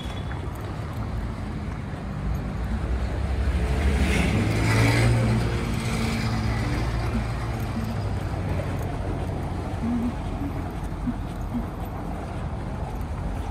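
Street traffic rumble, with a motor vehicle passing close and growing louder about four to six seconds in before fading back to the steady background hum.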